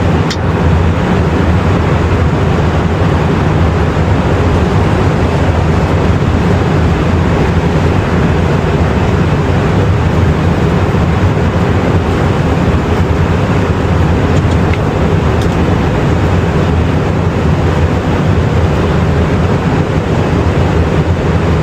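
Steady rushing flight-deck noise of an Airbus A350-1000 on final approach: the airflow and engine sound, even and unchanging, strongest in the low end.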